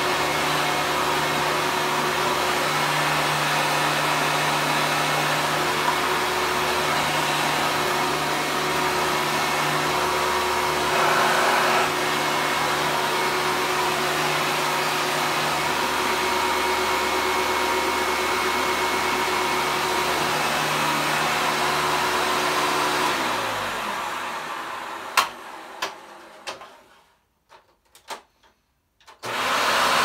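Hoover Legacy Supreme upright vacuum cleaner running steadily. About 23 seconds in it is switched off and its motor winds down with falling pitch, followed by a few sharp clicks and a moment of near silence. A loud noise starts up abruptly just before the end.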